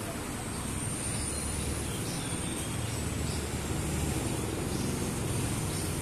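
Steady road-traffic rumble, with a faint thin high whine that drifts slightly up in pitch and then back down.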